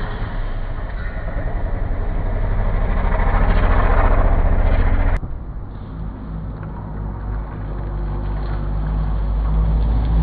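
Engine of a side-by-side UTV rally vehicle running hard on a gravel road, getting louder as it approaches. It cuts off abruptly about five seconds in, and then a quieter engine grows louder again as a vehicle nears.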